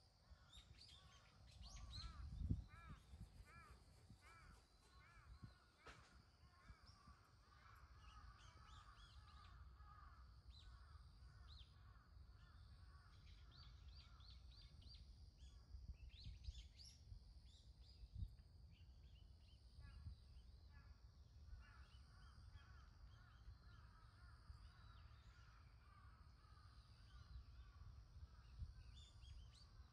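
Faint birds calling, with a run of repeated short chirps in the first few seconds and scattered chattering calls later. A steady high-pitched buzz and a low rumble run underneath.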